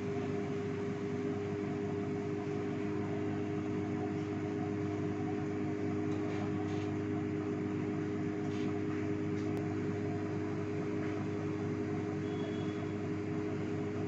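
Samsung microwave oven running on full power, a steady hum with a constant low drone as it heats the food.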